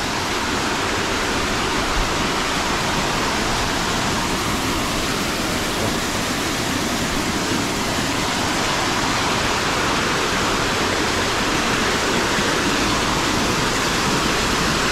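Steady rushing of a small waterfall pouring over rocks.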